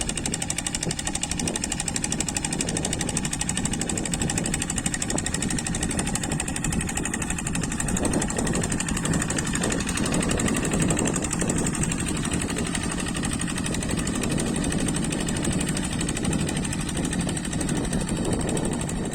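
Walking tractor's single-cylinder Kubota diesel engine running steadily with a fast diesel clatter.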